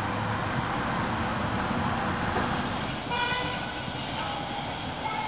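Steady urban traffic noise, with a short horn toot about three seconds in.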